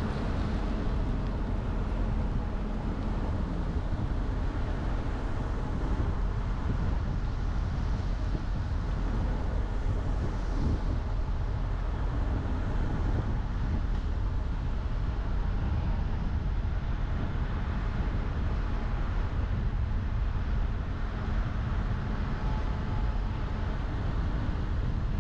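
Car driving along at a steady pace: a constant low rumble of tyre, road and engine noise.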